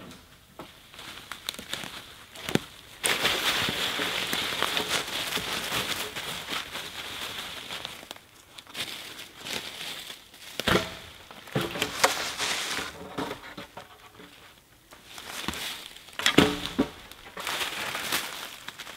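Dry dead branches and twigs crackling and snapping as they are pulled and broken by hand, with dry leaf litter rustling. A long stretch of dense crackling comes first, then a few separate sharp snaps.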